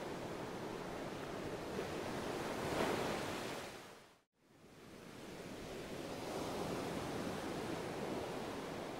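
A steady rushing noise like surf. It swells about three seconds in, fades out to silence a little after four seconds, and fades back in.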